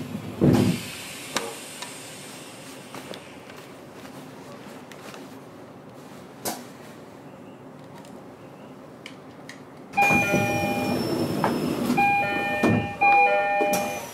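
Quiet railway platform background with one heavy thump about half a second in. From about ten seconds in, electronic chime tones ring in short repeated phrases over a louder background.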